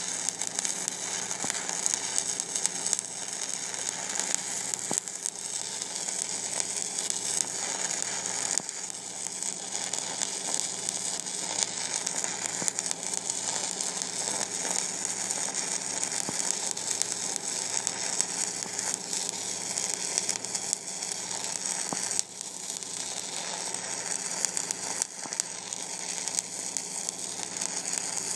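Stick-welding arc from a 1/8-inch 7018 electrode at about 120 amps, laying a bead on a 1/4-inch steel lap joint: a steady crackling sizzle with no breaks.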